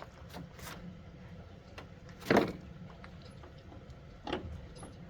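Clunks from a 1973 Johnson 50 hp outboard's tilt and run-lock mechanism being worked by hand after the locking lever was refitted. There is one loud clunk about two seconds in, a softer one near four seconds, and light clicks.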